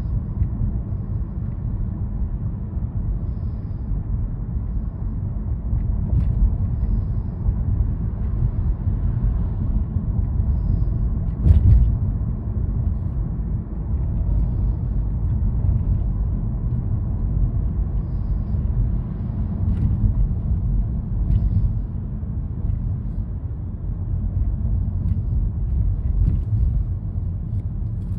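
Steady low road and engine rumble inside the cabin of a moving car. A single thump sounds about halfway through.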